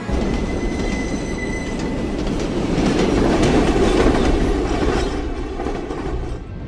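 Subway train running into a station and rushing past close by, its wheels rumbling and clattering on the rails. A thin steady wheel squeal rings over it for the first two seconds, and the rumble is loudest about three to four seconds in, then eases.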